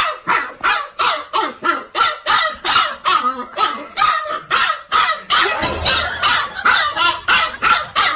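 A dog barking over and over in a steady, loud run, about three barks a second.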